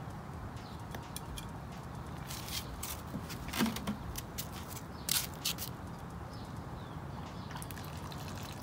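Handling sounds while planting: a few short clicks and knocks from a hand trowel working soil and a plastic watering can being picked up, over a steady low background rumble. Faint bird chirps come and go.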